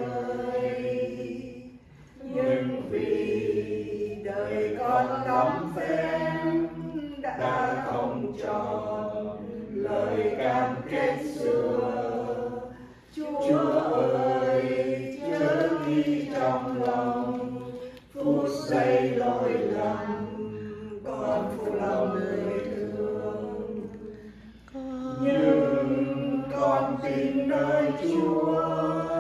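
A group of voices singing a hymn, choir-style, in long held notes with brief breaks between phrases.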